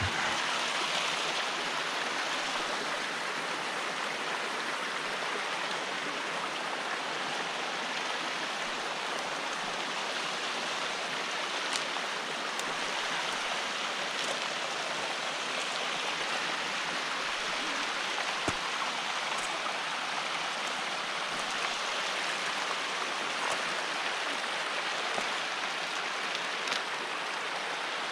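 Steady rush of flowing water, with a few faint, light knocks scattered through it.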